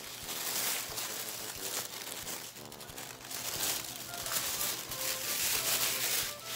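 Tissue wrapping paper crinkling and rustling in waves as it is handled and pulled apart. Soft background music notes come in faintly under it in the second half.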